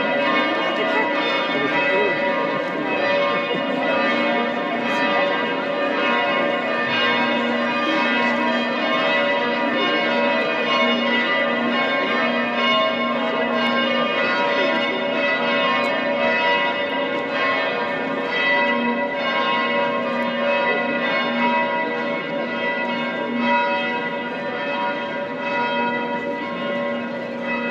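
Two large church bells of St. Stephen's Cathedral ringing together, a continuous overlapping peal with a sustained hum between strokes; it eases off slightly near the end.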